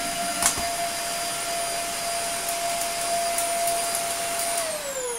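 Dyson DC50 vacuum cleaner running, its main motor giving a steady whine with a rushing air hiss, while the brushroll stays dead, typical of its blown brushroll control board. There are a few light clicks, and near the end the motor is switched off and its whine starts falling as it spins down.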